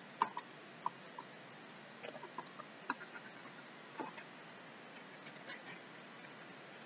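Scattered light taps and clicks of a stylus on a pen tablet, in small irregular clusters, over a faint steady hiss.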